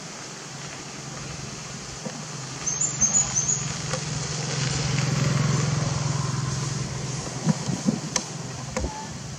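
A motor vehicle's engine passing by, a low steady hum that grows louder toward the middle and then fades away. A few short clicks come near the end.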